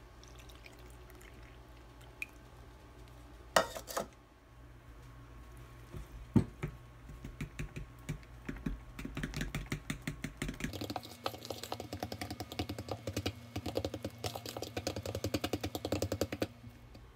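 Cake batter being stirred by hand in a mixing bowl. A couple of knocks and a clatter come first, then from about eight seconds in there is rapid, dense clicking and scraping of the utensil against the bowl, which stops shortly before the end.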